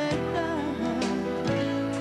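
Backing music of a pop song: sustained chords with a few drum hits.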